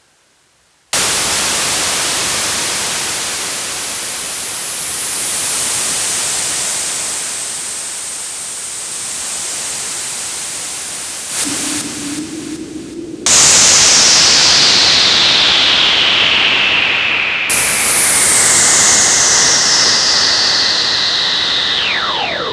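Roland AIRA Compact S-1 synthesizer playing loud white noise that starts suddenly about a second in, with a whistling filter sweep sliding slowly down in pitch through it. Around halfway the hiss thins out and a low tone sounds briefly, then the noise comes back louder with another downward sweep.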